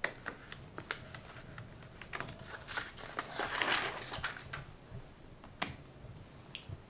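Screwdriver clicking and scraping on screws in a hard plastic housing, with plastic parts ticking and rattling as it is taken apart. There is a busier stretch of scraping and rattling in the middle and a single sharp click near the end.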